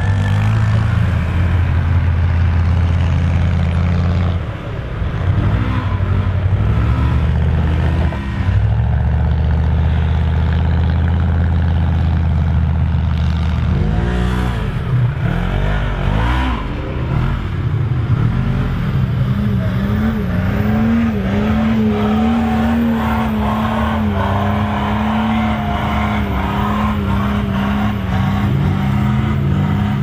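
Swapped-in LS6 V8 in a Nissan Patrol revving hard, its pitch rising and falling several times in the first half. It is then held steady at high revs for the last dozen seconds while the tyres churn through mud.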